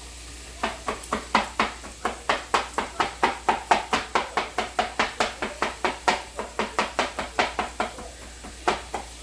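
Kitchen knife chopping on a cutting board: a steady run of sharp knocks at about four a second, then a couple of separate chops near the end.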